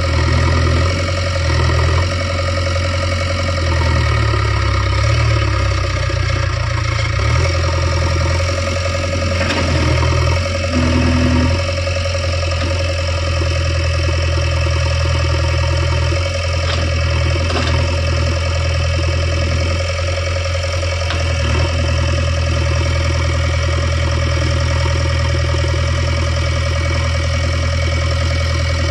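JCB 3DX backhoe loader's diesel engine running steadily, its note shifting a few times in the first half.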